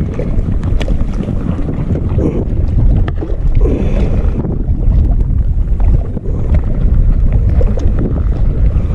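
Strong wind buffeting the camera microphone: a loud, steady low rumble, with a few light clicks and knocks over it.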